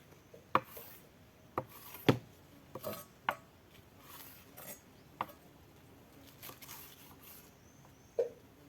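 Irregular light knocks and taps, about seven in all, of objects being handled and set down. The loudest comes about two seconds in.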